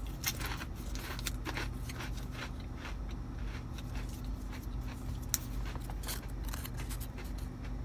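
Scattered soft crinkles and small ticks of fingers unfolding and straightening a small paper fortune-cookie slip, over a steady low hum.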